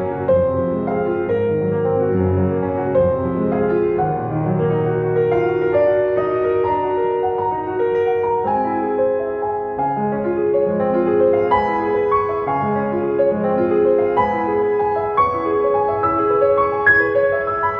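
Background instrumental music: a keyboard melody of held notes following one another steadily.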